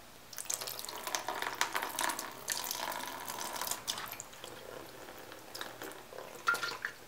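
Cleaning solution pouring out of a small plastic engine fuel tank and splashing into a plastic tub, starting just after the start, thinning to a trickle after about four seconds, with a few last splashes near the end.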